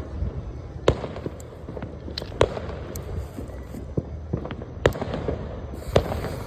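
A 100-shot salute fireworks cake firing: sharp bangs at uneven intervals, four of them much louder than the smaller pops between.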